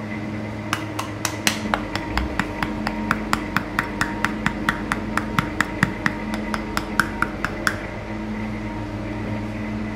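A small hand sieve being tapped in a quick, even rhythm, about four taps a second for some seven seconds, to dust powdered sugar over baked empanadas. A steady hum of kitchen machinery runs underneath.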